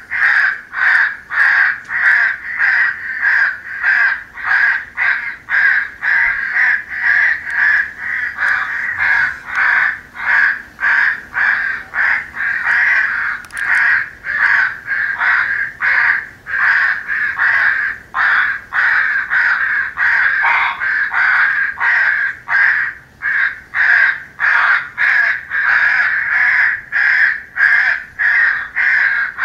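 A flock of crows cawing over and over, about two caws a second with calls overlapping: a recorded crow-calling file for an electronic game caller, meant to lure crows in.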